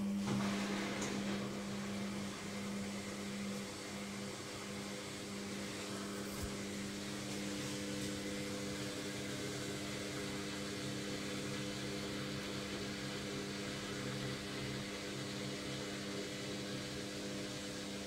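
Logik front-loading washing machine on an intermediate spin: the drum motor running at a steady speed, a steady hum of several tones over an even rushing noise.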